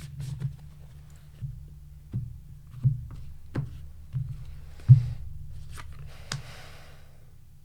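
Tarot cards being handled on a table: about nine soft taps and knocks at uneven intervals, with a brief sliding rustle around five to six seconds in, over a steady low hum.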